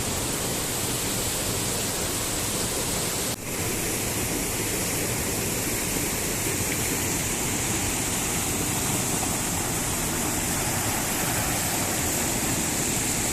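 Small waterfall, a steady rush of falling water with no change in level, broken only by a brief dip about three and a half seconds in.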